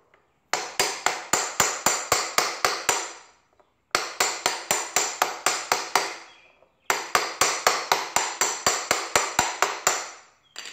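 Metal hammer tapping a steel socket used as a driver, pressing a motorcycle wheel bearing into the hub. It comes as rapid, even taps at about five a second, each with a brief metallic ring, in three runs broken by short pauses while the socket is turned to drive the bearing in evenly.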